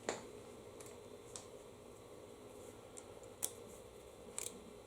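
A few faint, light clicks and taps of small metal parts being handled while fitting a spring onto a lawn mower engine's carburetor linkage.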